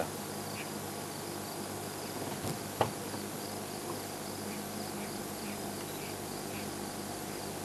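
Crickets chirping in a steady chorus of high, evenly repeated chirps. One short, sharp sound stands out about three seconds in.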